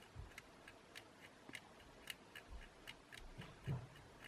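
Faint, quick ticks of a small tool working on the drone's circuit-board contacts, about three to four a second, with a soft low thump near the end.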